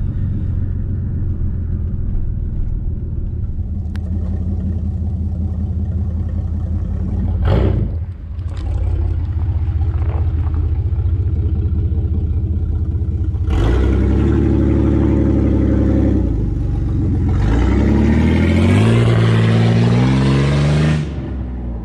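A 1996 GMC Sonoma pickup's straight-piped engine, its catalytic converters removed, runs with a steady low drone, with a short sharp knock about seven seconds in. About halfway through it revs loudly and holds for a couple of seconds, then rises in pitch in steps as the truck accelerates away, and the sound cuts off suddenly near the end.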